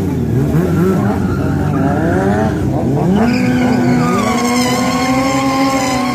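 Sport motorcycle engines revving, their pitch swinging up and down, then settling into a steady held high note from about halfway through.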